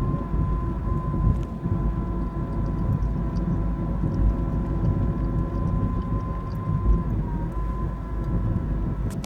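2013 Nissan Versa running, with heavy engine and road rumble and a steady high-pitched whine over it that dips briefly about seven seconds in. The owner takes the whine for a CVT problem.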